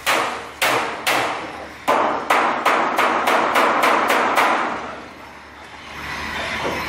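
A run of about a dozen sharp metallic bangs on a stainless steel batch fryer, each ringing briefly. They come about two a second at first, quicken to about three a second, and stop about four and a half seconds in, leaving a steady machine noise.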